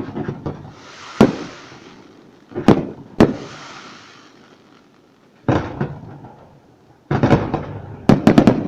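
Fireworks display: aerial shells bursting with sharp bangs, some followed by a crackling hiss. Single bangs come every second or so at first, then quick clusters of several bangs near the end.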